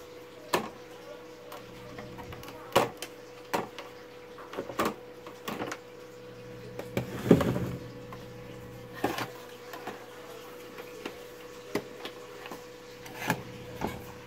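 Irregular clicks, knocks and rattles of a CRT TV's circuit board, plastic wire connectors and chassis being handled and the board lifted out, with a louder clatter about seven seconds in, over a faint steady hum.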